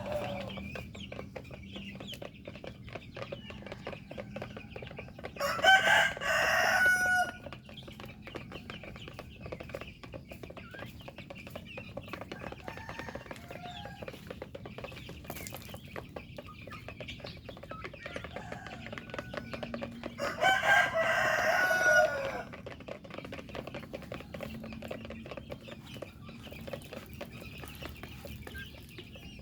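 Chickens clucking steadily, with a rooster crowing twice, once about six seconds in and again about twenty seconds in.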